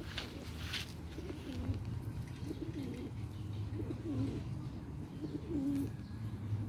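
Feral pigeons cooing: about four low, warbling coos in a row.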